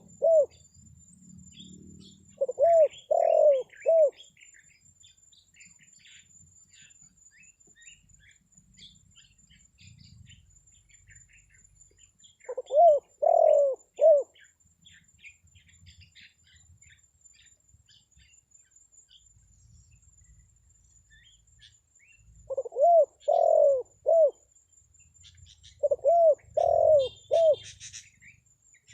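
Spotted dove (tekukur) cooing: about four phrases of three to four low arched coos, several seconds apart, a decoy call for luring wild doves. Between phrases, faint short chirps of small birds and a thin steady high tone.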